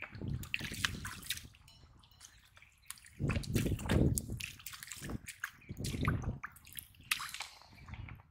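Shallow muddy water sloshing and splattering in irregular bursts as feet wade through the mud and catfish thrash in it, the heaviest sloshes coming about three to four seconds in.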